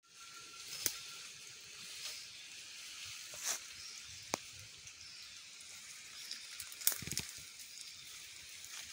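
Rainforest undergrowth: a steady high hiss of forest ambience, broken by a handful of sharp snaps and rustles of twigs and leaves. The loudest cluster comes about seven seconds in.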